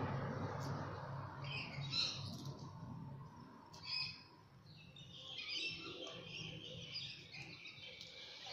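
Sulphur-crested cockatoos making soft, short chirping calls: a few near two and four seconds in, then scattered chirps through the second half.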